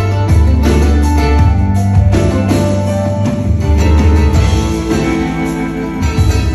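Rock band playing live, recorded from the audience in the hall: electric guitar, keyboard and drum kit over held, heavy bass notes.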